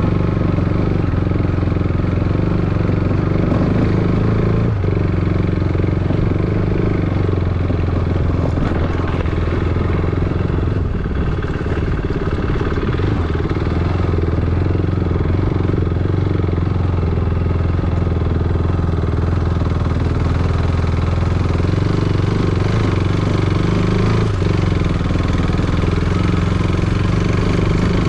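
Motorcycle engine running steadily, dipping briefly about eleven seconds in.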